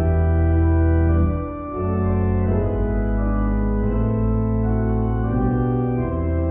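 Organ playing sustained chords with a strong bass line, the chords changing every second or two: the closing postlude after the service.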